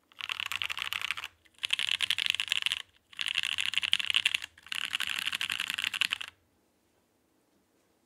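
Fast typing on a 60% mechanical keyboard with lubed and filmed Pewter light-tactile switches, an aluminium plate in a top-mount case with cotton under the PCB, and GMK keycaps. Four quick runs of keystrokes with short pauses between them, stopping about six seconds in.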